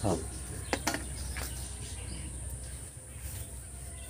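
Insects, crickets or the like, keeping up a steady high-pitched chirring in the background. A brief voice sounds right at the start, and a couple of faint clicks come about a second in.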